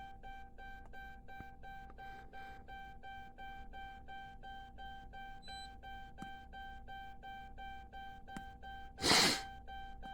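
Electronic warning chime dinging rapidly and steadily, about four times a second, on one unchanging pitch. About nine seconds in, a short, loud rushing noise cuts across it.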